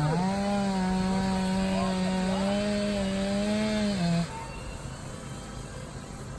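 Two-stroke chainsaw running at high revs, its pitch stepping up slightly at the start and holding steady, then dropping away abruptly about four seconds in, leaving quieter background noise.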